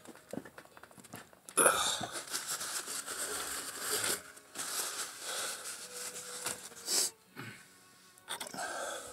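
Scratchy rubbing of a PVC primer or cement applicator being worked over a PVC pipe end and fitting. It starts about a second and a half in, runs for several seconds, pauses, and comes back near the end.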